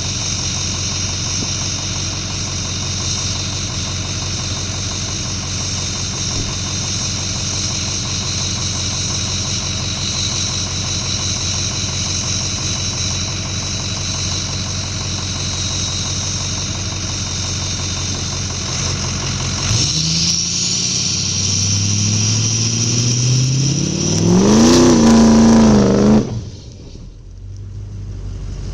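2006 Ford F-250's 6.0 Powerstroke V8 turbo diesel idling with a steady high turbo whistle over it. About 20 seconds in it is revved up, climbs for several seconds to its loudest near the end, then drops back sharply to a quieter idle.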